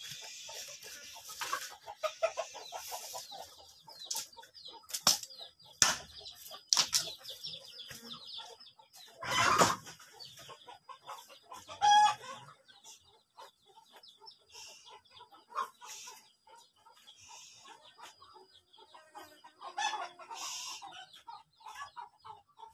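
Chickens clucking on and off, with scattered sharp knocks and a brief rush of noise about halfway through.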